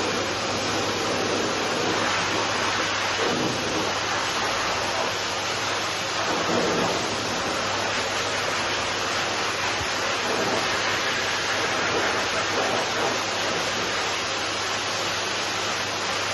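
Pet grooming dryer blowing a steady rush of air, with a low hum under it.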